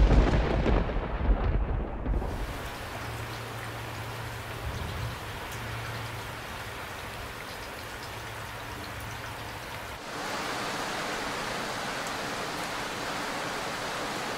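A thunderclap with a rolling rumble in the first two seconds, then steady rain falling, which grows louder about ten seconds in.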